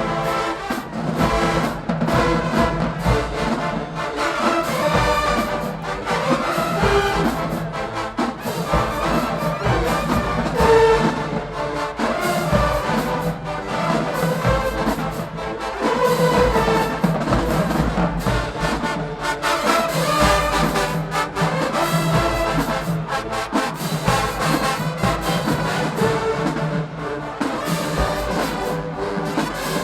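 College marching band playing: a full brass section of trumpets and trombones over marching drums.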